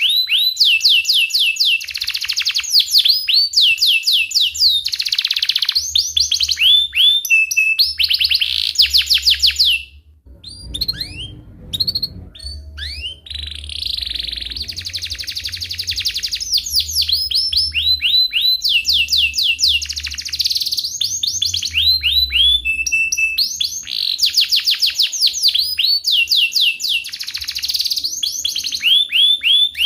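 Domestic canary singing a long, fast song of rapid repeated high chirps and rolling trills, with a short break about ten seconds in before the trills resume.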